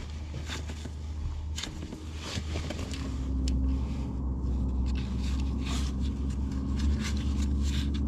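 Light metallic clicks and scrapes of bolts being handled and fitted by hand on a quad's engine casing, over a steady low hum that grows louder about three seconds in.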